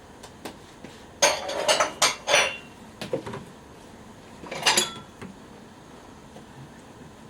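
Metal camp cookware being handled: a clatter of clinks and knocks lasting about a second, a few lighter knocks, then a second short clatter.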